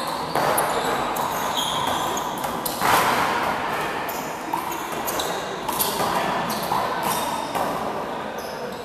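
Small rubber handball smacking off hands, wall and floor, with athletic shoes squeaking on the gym floor as players shuffle about; the loudest hit comes about three seconds in.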